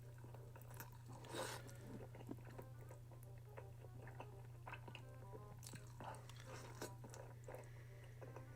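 Faint chewing and mouth sounds of a person eating, short wet smacks and clicks scattered throughout, one a little louder about a second and a half in, over a steady low hum.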